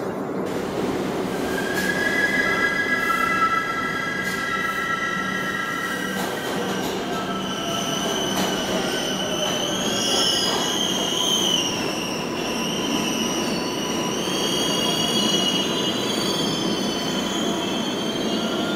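An R142A subway train rumbling into the station and slowing to a stop, with steady running noise and wavering, high-pitched squeal from the wheels and brakes. The squeal climbs higher in pitch over the second half.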